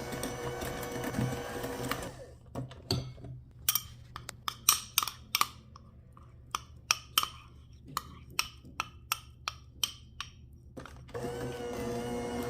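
Electric hand mixer running with a steady hum, then switched off about two seconds in. About twenty sharp, irregular clicks and knocks follow over some nine seconds, before the mixer starts again near the end.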